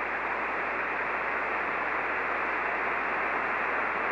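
Static and band noise from an HF receiver tuned to single-sideband on the 75-meter band, a steady hiss with no station transmitting.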